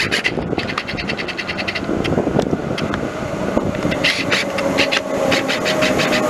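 Melbourne Metro electric suburban train pulling in to the platform. It starts with a rapid, even clicking, then scattered clicks, and a steady whine comes in near the end as it draws alongside.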